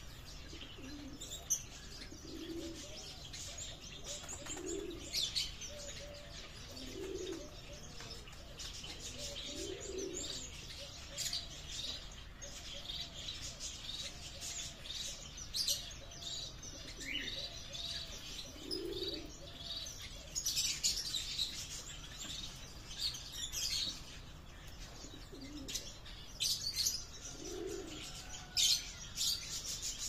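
Pigeons cooing, a low coo every two to three seconds, over many small birds chirping steadily.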